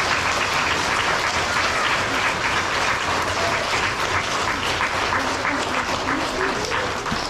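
Audience of children and adults applauding steadily as an award winner is called up, the clapping dying away near the end.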